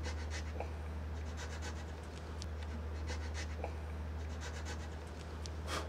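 Round file scratching in short, uneven strokes across the wooden tip of a handmade longbow, cutting the string nocks. A steady low hum runs underneath.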